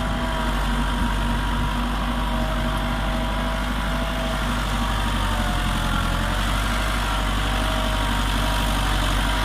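Diesel tractor engine running steadily under load while it pulls a heavy cultivator through the soil.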